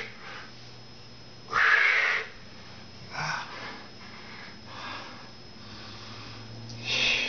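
A man's heavy breathing from the exertion of push-ups: a loud exhale about two seconds in, several softer breaths, and another strong breath near the end.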